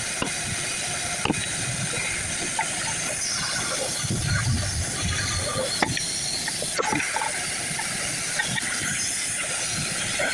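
Steady rushing hiss of flow through a hose, with scattered light knocks and clicks as the hose is worked.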